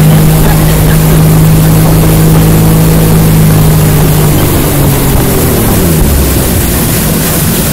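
Speedboat engine running hard at speed, with the hiss of spray and wind on the microphone. About five seconds in, the engine note falls as the boat slows.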